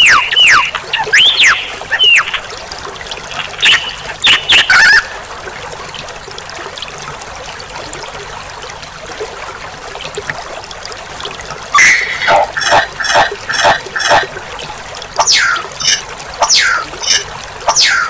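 Recorded songbird calls from a bird-song training track: sharp whistled notes that fall steeply in pitch, then a stretch of steady background hiss with few notes. About twelve seconds in there is a quick run of repeated chattering notes, followed by more falling whistles near the end.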